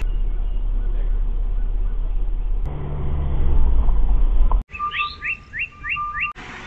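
Low vehicle rumble picked up by a dashcam while driving a dirt track, swelling louder about three seconds in. It cuts off suddenly, and a bird then gives five quick rising chirps.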